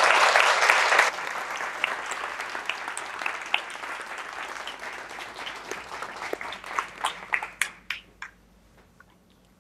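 Audience applauding: dense clapping that drops off sharply about a second in, then thins to scattered individual claps that die away near the end.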